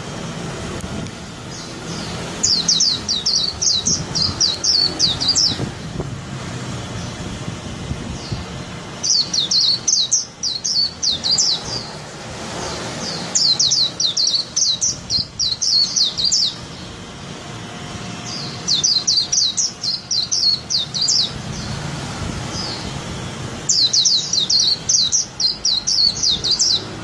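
Caged Swinhoe's white-eye singing its fast, high, jumbled warble in five separate bouts of about three seconds each, with pauses of a couple of seconds between them.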